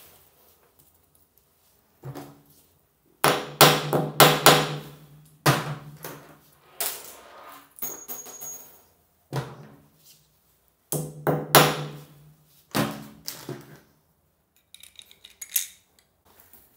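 Cordless hammer drill drilling into the tiled wall in a series of short bursts, about seven, each about a second long, with the motor's steady whine stopping and starting between them.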